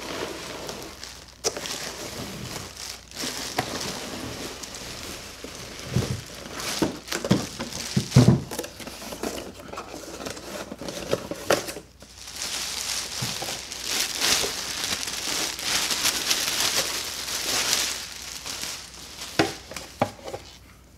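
Plastic packaging crinkling and rustling and a cardboard box being handled as a tool is unpacked, with a cluster of knocks about a third of the way in, the loudest of them near the middle. A longer, denser stretch of crinkling follows in the second half.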